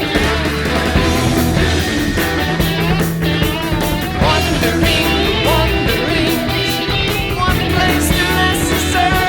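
Background music: a rock-style song with guitar and a steady beat.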